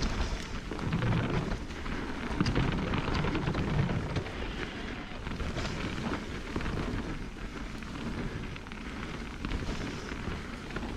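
Mountain bike riding fast down a dirt singletrack: tyres crunching and crackling over packed dirt and small stones, the bike rattling over bumps, with wind rumbling on the microphone.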